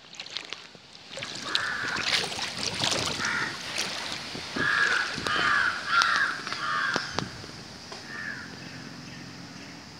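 Crows cawing: a string of short harsh calls, several in quick succession around the middle, then fewer and fainter near the end.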